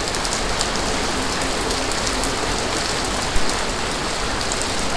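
Steady heavy rain falling, a dense even hiss full of small drop ticks.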